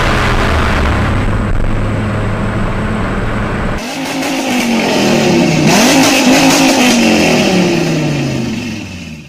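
V10 sports car engine running at a steady low rumble, then after an abrupt change about four seconds in, revved hard several times, its pitch climbing and falling with each blip before fading away near the end.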